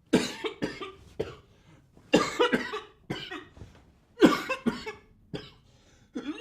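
A man coughing in short fits, about a dozen harsh coughs in all, while lying face down with his chest pressed down.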